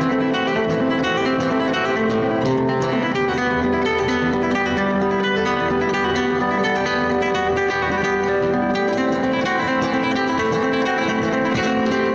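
Background music: acoustic guitar playing plucked and strummed notes, flamenco-like in style, at a steady level.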